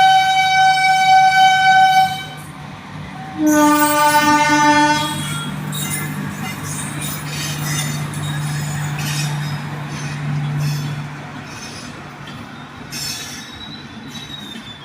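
Train horn sounding twice: a high-pitched blast that ends about two seconds in, then a shorter, lower-pitched blast a second later. The train's running noise and a steady low hum follow, easing off after about eleven seconds.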